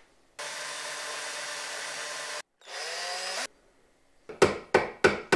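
Cordless drill with a small twist bit running in two spells, about two seconds and then about one second, the second spinning up with a rising whine, to drill a small cross-hole through a thin aluminium tube. About four sharp, loud clicks follow near the end.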